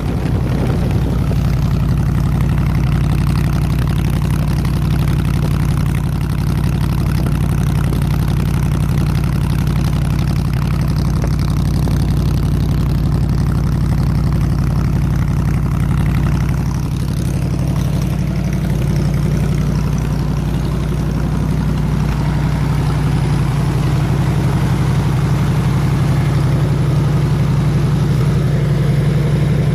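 Gasoline engine of a 302 air compressor idling with a steady, even low hum. It runs smoothly on a points distributor and a rebuilt carburetor, which the owner says runs like a new one.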